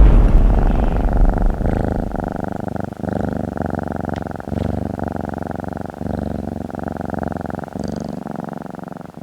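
Cat purring steadily, with short breaks every second or so as it breathes in.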